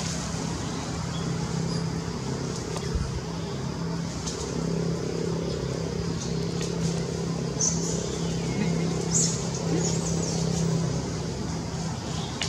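A steady motor drone, with short high-pitched ticks now and then over it.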